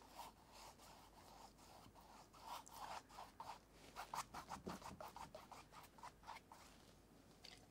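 Faint scratching of a paintbrush dragging acrylic paint across a stretched canvas in quick repeated strokes, busiest in the middle.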